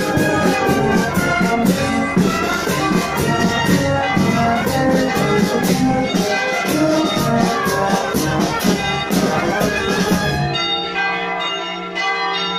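Street brass band playing a march: trombones and other brass over a regular drum beat. About ten and a half seconds in the drums stop and the band holds a final chord.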